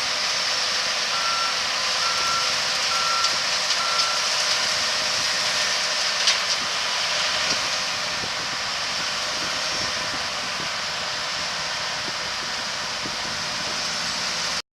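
Steady rushing noise of farm harvest machinery running, with a backup alarm beeping four times in the first few seconds. A single sharp click about six seconds in, and the sound cuts off abruptly just before the end.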